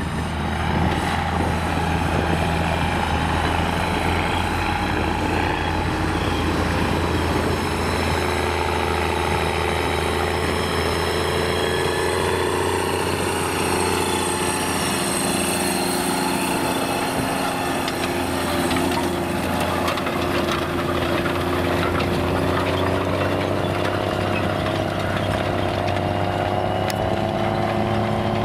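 Belarus MTZ 3022 tractor's diesel engine running steadily under load as it pulls a disc harrow through the soil. Its pitch shifts around the middle as it drives close past.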